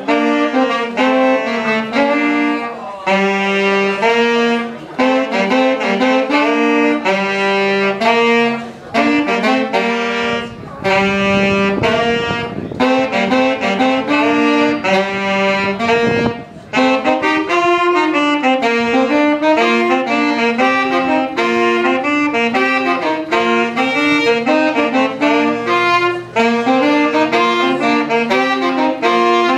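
Two saxophones playing a jazz duet, their melody lines moving together in note-by-note phrases with short breaks between them.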